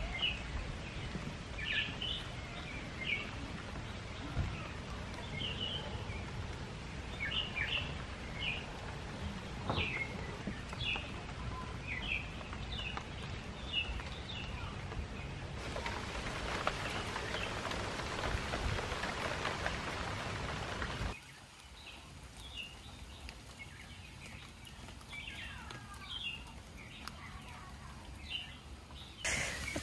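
Steady rain falling in the forest while birds chirp in short repeated calls. The rain grows louder past the middle, then drops away suddenly about two-thirds of the way through to a quieter hiss, with birds still chirping faintly.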